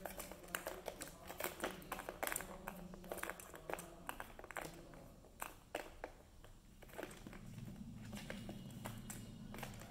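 Plastic balls rattling and knocking around the tracks of a plastic tiered cat toy (Tower of Tracks) as kittens bat at them: a quick scatter of sharp clicks and taps, busiest in the first half and thinning out after about six seconds. A low hum comes up near the end.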